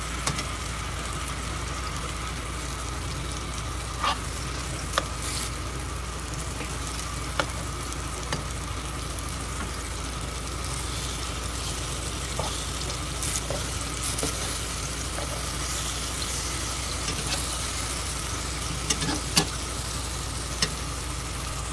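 Halved Cavendish bananas frying in cooking oil in a pan: a steady sizzle with occasional sharp clicks and pops.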